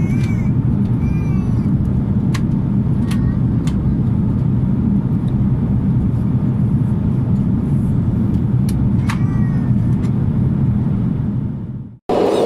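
Steady low rumble of an Airbus A330-300 heard from inside the passenger cabin, with a few faint squeaks and clicks over it; it fades out quickly near the end.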